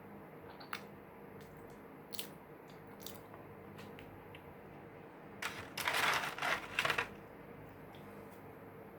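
A few faint clicks, then a burst of crunching about five and a half seconds in that lasts about a second and a half: Butter Ring butter cookies being bitten and chewed.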